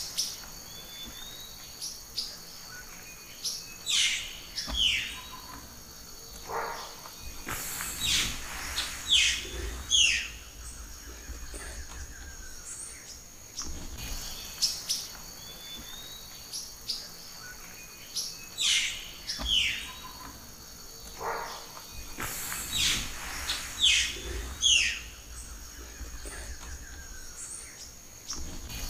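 Forest ambience: scattered bird calls, short falling whistles and chirps, over steady high insect trilling. The whole sequence repeats itself about every 14 seconds.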